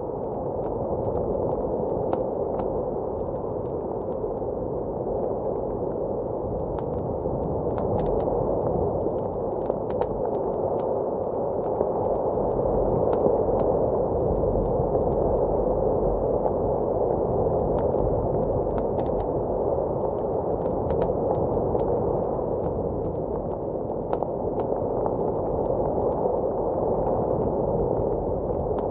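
Fireplace fire crackling, with scattered sharp snaps and pops at irregular moments, over a steady low rush of blizzard wind outside.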